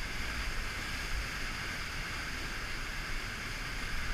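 Whitewater of a river rapid at high flow rushing steadily close by.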